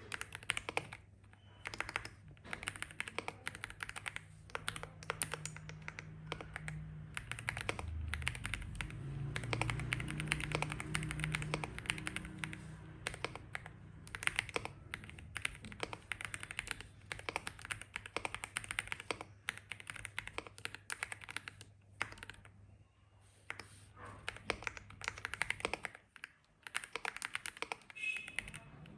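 Aula M75 aluminium-case mechanical keyboard being typed on: a steady stream of fast keystrokes, broken by a few short pauses.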